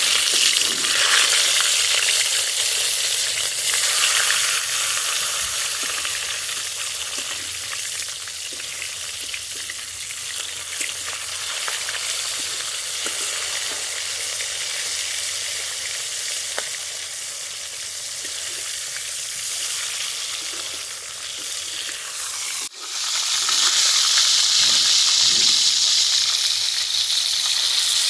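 Food sizzling in hot oil in a cooking pan, a loud, steady hiss that starts suddenly and keeps going. It breaks off for an instant about 23 seconds in and comes back louder.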